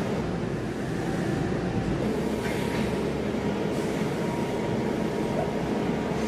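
Mazak Variaxis i-700T five-axis machining centre running between cuts, a steady mechanical hum with a faint steady whine, and a short hiss about two and a half seconds in.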